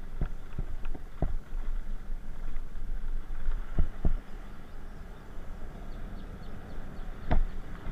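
Aprilia SR 125 scooter being ridden over a rough road: a steady low rumble of its single-cylinder engine and road noise, broken by several sharp knocks and rattles as it goes over bumps, the loudest near the end.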